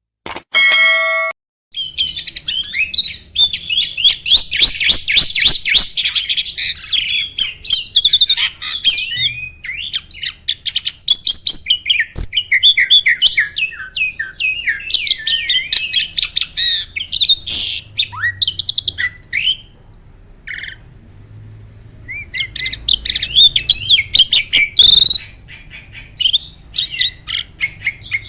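Caged jalak (starling) singing a loud, fast, varied song of chirps, trills and sharp whistled notes, with a short lull about two-thirds of the way through. A brief tone sounds at the very start, before the song begins.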